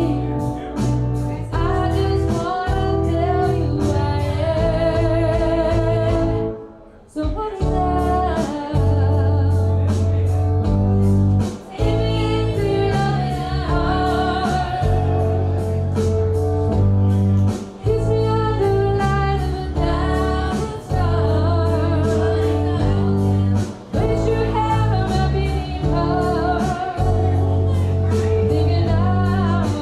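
Live music: a woman singing to guitar and bass guitar, with a steady bass line underneath. The music breaks off briefly about seven seconds in, then carries on.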